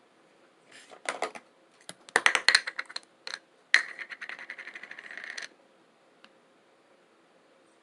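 Close-miked eating sounds: several short runs of quick clicks and taps, then a longer scratchy run that stops abruptly about five and a half seconds in.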